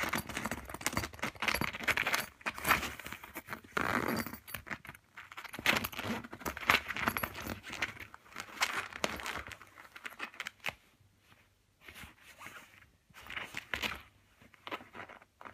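A ferret burrowing into a black fabric bag: cloth rustling and metal zipper pulls clinking and jingling in irregular bursts, which thin out over the last few seconds.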